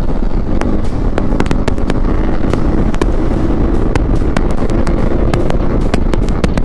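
Loud V4 sportbike with an aftermarket Akrapovič exhaust, dB killer fitted, running at speed with a rapid, irregular crackle of exhaust pops over the engine note.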